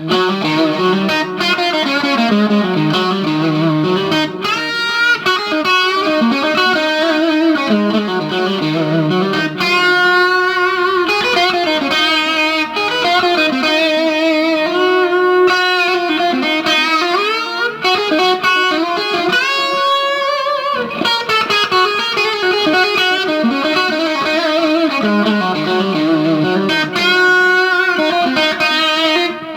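1980s Fernandes electric guitar played through effects, a melodic lead line of sustained notes with vibrato and string bends.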